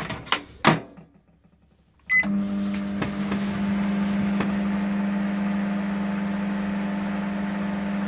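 Button presses on a Panasonic microwave oven's control panel, then about two seconds in a short beep as it switches on. From then on there is a steady buzzing hum from the high-voltage transformer and the 2M211A-M1 magnetron. The repairer takes this buzz as a sign that voltage is reaching the magnetron, with the diode, capacitor and transformer working, but he doubts that the resoldered magnetron will actually heat.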